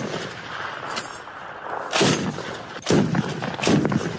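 Kord 12.7 mm heavy machine gun firing: loud reports about once a second, each ringing out briefly.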